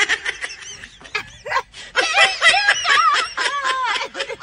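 A woman laughing hard and loud, in high-pitched whoops that rise and fall with short breaks between them.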